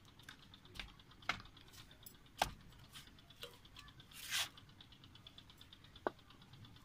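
A small knife cutting a boiled potato into small pieces over a steel plate: faint scattered clicks and taps, about six of them, as the blade cuts and pieces drop onto the metal, with one short scrape about four seconds in.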